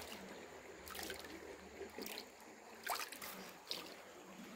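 Faint trickling water broken by a few short, sharp sounds as soured fishing chum (ceva) is tossed into the river.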